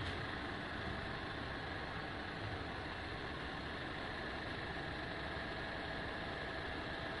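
Steady hum of city traffic, an even rushing noise with no distinct events.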